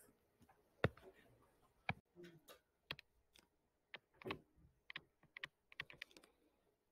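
Faint, irregular light clicks and taps from a stylus on a tablet screen and computer controls, coming quicker near the end as handwriting goes on.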